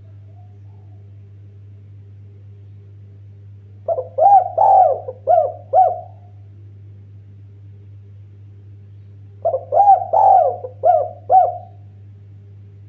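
Spotted dove cooing: two phrases of about five arched coo notes each, one a few seconds in and one near the end.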